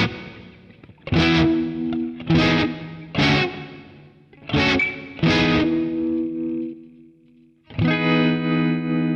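Fender Stratocaster electric guitar played through a Boss Katana 50 MkII amp with an effect on, recorded direct over USB. About seven strummed chords, each left to ring out, with the last one struck near the end and held.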